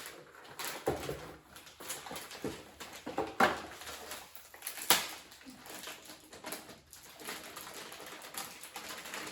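Scattered clicks and knocks of computer case parts being handled during PC assembly, with two sharper knocks about three and a half and five seconds in.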